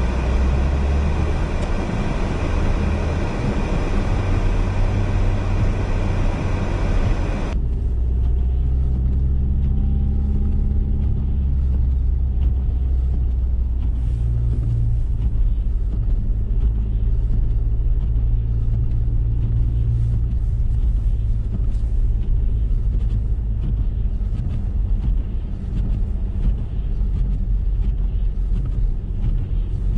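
Car cabin noise while driving on a snow-covered road: a steady low rumble of engine and tyres. A loud hiss that fills the first seven or so seconds cuts off suddenly, leaving the low rumble.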